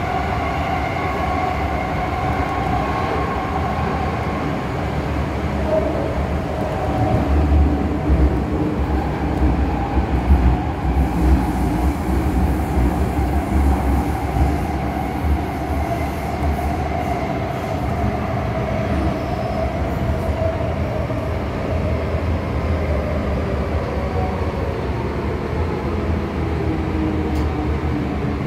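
MTR Island Line M-Train metro car running through a tunnel, heard from inside by a door: a steady rumble of wheels and running gear with held whining tones, with some louder bumps in the middle. Near the end a whine falls in pitch as the train slows into a station.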